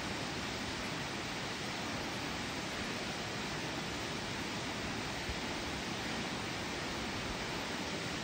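Steady, even hiss of background noise, with no distinct clicks, taps or tool sounds.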